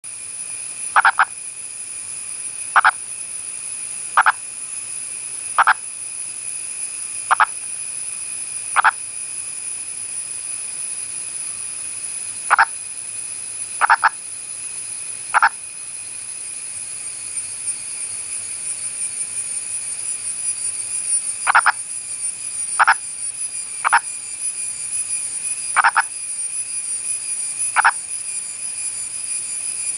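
Indian purple frog calling: short, sharp single calls repeated about every one and a half seconds, in three runs of six, three and six calls with pauses between. A steady high-pitched background drone runs underneath.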